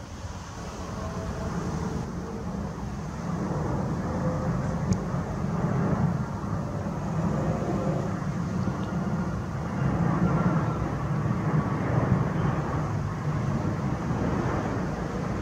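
Jet engines of an Airbus A330 airliner passing low overhead on approach with its gear down: a steady low rumble that swells over the first few seconds and then holds.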